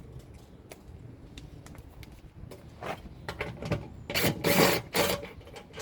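Metal rattling and scraping as the T50 Torx bolt on a Jeep Wrangler JKU rear seat frame is worked loose by hand. It comes in a run of short bursts from about three seconds in, loudest near the end.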